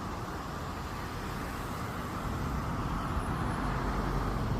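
Steady road traffic noise: vehicle engines and tyres, with a low rumble, growing a little louder near the end.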